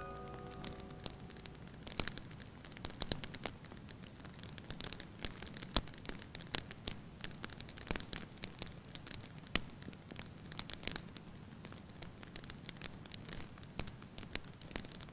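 Burning grass crackling and snapping, with irregular sharp pops over a low, steady hiss.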